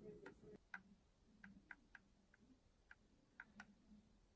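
Panasonic HC-W580 camcorder making faint, irregular ticking clicks, about two or three a second: the weird noise the camcorder has developed.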